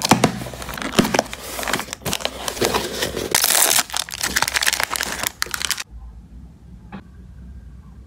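Packing tape pulled off a cardboard box and a clear plastic dessert tray and wrapper handled, a dense crinkling and crackling. It stops about six seconds in, followed by a single click about a second later.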